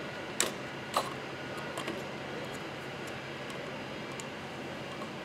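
Two sharp metallic clicks about half a second apart, then a couple of lighter ticks: test probe tips tapping against the screw terminals of a Fanuc power supply module during a diode check. A steady shop background hiss runs underneath.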